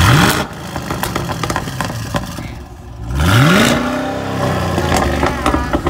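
Chevy SS's 6.2-litre LS3 V8 revved twice from idle, heard at the dual exhaust tips with a cold air intake fitted: a quick blip at the start, then a longer rev about three seconds in that holds briefly and falls back.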